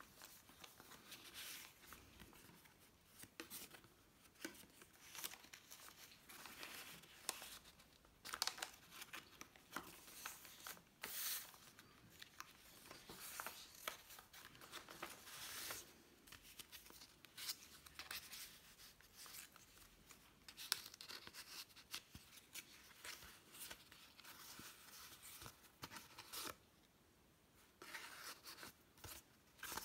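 Faint rustling and crinkling of paper as the pages of a handmade paper junk journal are turned and its tucked-in tags and inserts handled, in short irregular bursts with a brief lull near the end.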